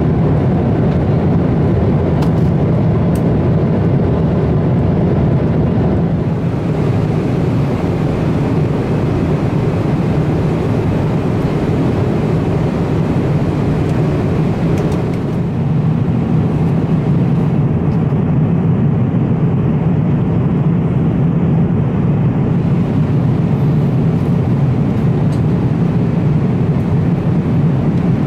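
Steady low cabin drone of a Boeing 777-300ER in cruise flight: the constant rumble of engines and airflow heard inside the passenger cabin.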